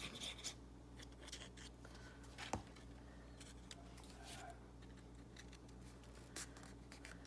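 Faint sounds of glue being applied to a cardstock strip: soft rustles and a few light taps, over a steady low room hum.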